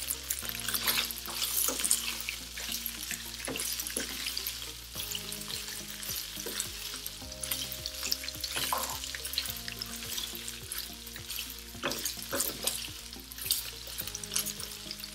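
Cubes of paneer sizzling and crackling as they shallow-fry in oil in a frying pan. Now and then a spatula scrapes and turns them.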